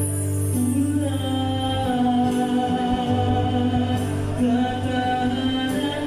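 Live acoustic band playing a song with keyboard and acoustic guitar, a singer holding long sustained notes that change pitch every second or so.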